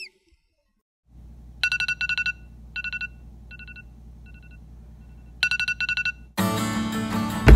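Smartphone alarm ringing: groups of rapid, high beeps that get fainter, then come back loud. Loud music with guitar starts near the end.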